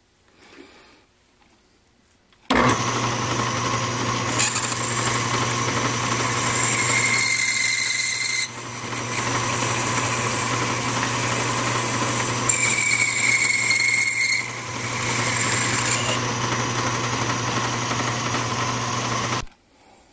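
Craftsman 109 bench lathe starting up about two and a half seconds in and running steadily while a twist drill bores into the spinning work, with a high squeal coming in twice; the machine stops abruptly near the end.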